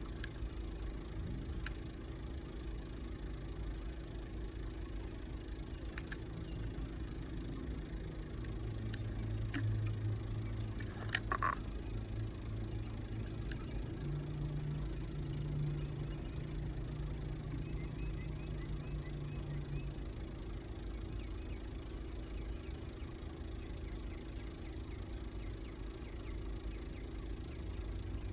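A steady low engine hum whose pitch shifts now and then, with a few faint scattered clicks.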